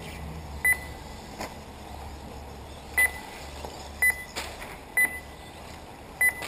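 Short, high electronic beeps, each a quick double, sounding five times at uneven intervals: the RC race lap-timing system logging cars as they cross the timing loop. A steady low hum and a few faint clicks lie underneath.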